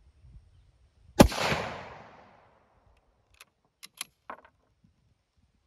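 A sporterized Lee-Enfield No. 1 Mk III rifle in .303 British fires one shot about a second in, and the report echoes away over about a second. Some two seconds later the bolt is worked with four quick metallic clacks to cycle the action for the next round.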